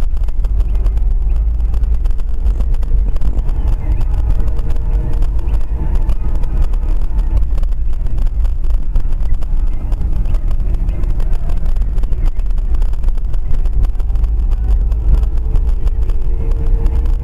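Steady low rumble of a car, heard from inside its cabin, without a break or any sudden impact.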